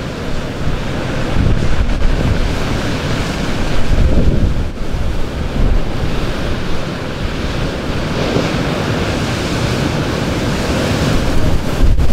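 Ocean surf breaking and washing up the beach over sand and rocks, with wind buffeting the microphone. The wash swells louder about four seconds in and again as a large wave surges in near the end.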